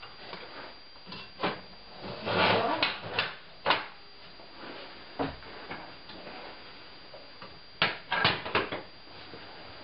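Cast-iron pot-bellied stove doors being shut and latched: a string of metal clanks and knocks in two groups, the second group near the end.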